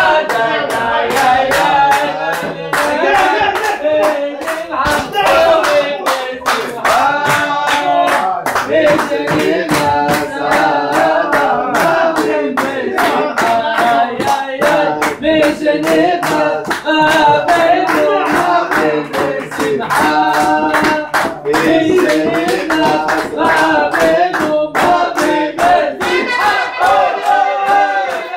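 A group of voices singing a song together, with hand-clapping keeping a steady beat of about two to three claps a second.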